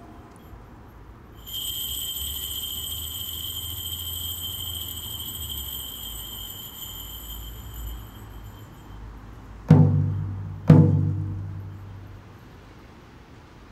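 Japanese Bon-ritual music: a high, steady ringing tone held for about seven seconds, then two deep struck beats about a second apart, each ringing out and fading.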